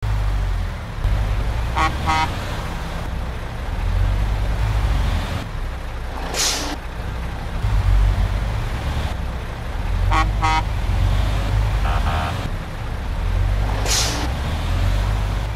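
Dubbed-in sound effects of a heavy truck: a steady low diesel-engine rumble, with a short double horn toot about two seconds in and again about ten seconds in, and a brief air-brake hiss about six seconds in and again near the end.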